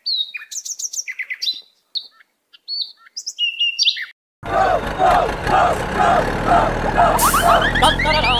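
Bird chirps and tweets, short high calls separated by dead silence, for about four seconds; then at about four and a half seconds music comes in with a repeating melodic figure and bass, with a quick run of rising whistle-like glides near the end.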